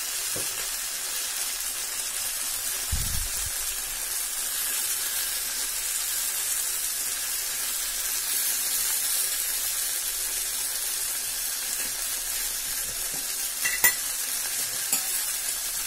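Pieces of brinjal (eggplant) frying in oil in a steel pan, a steady high sizzle, with whole panch phoron spices and a dry red chilli in the middle of the pan. A soft bump about three seconds in and a sharp click near the end.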